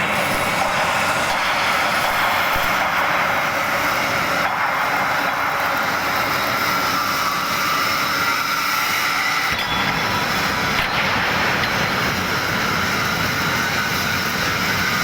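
CO2-shielded MIG welding arc burning continuously, a steady hiss.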